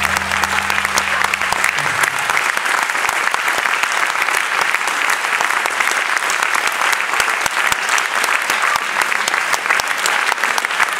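Audience applauding steadily, a dense continuous clapping. A held low note from the band dies away in the first two seconds.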